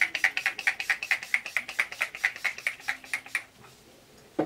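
A small hand-pump spray bottle spritzed over and over in quick short puffs, about seven a second, stopping about three and a half seconds in. A single knock comes near the end.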